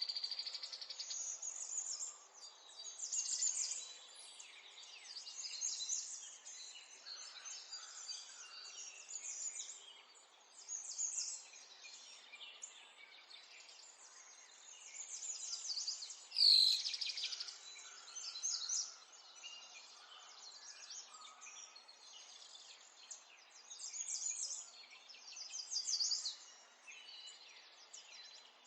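Several small songbirds chirping and singing, in short trilled phrases that come every couple of seconds. A brief, sharp, louder sound about halfway through stands out above the song.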